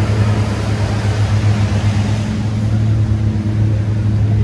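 Thai longtail boat's engine running steadily and loud: a low drone with a hiss over it.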